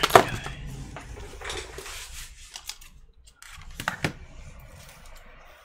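Scissors picked up and snipping, a sharp click just after the start, then scattered small clicks and rustling, with two more sharp clicks about four seconds in.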